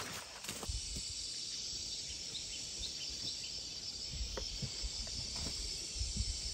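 Steady, high-pitched insect chirring in the garden, with a few low rumbles of wind on the microphone.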